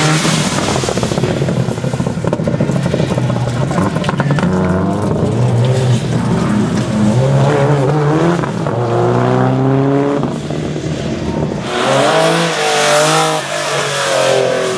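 Rally car engine revving hard, its pitch climbing and dropping repeatedly as it changes gear.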